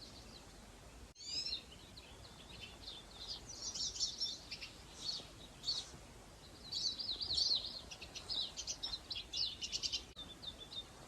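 Small birds chirping and singing: quick high sweeps and rapid trills in several bursts.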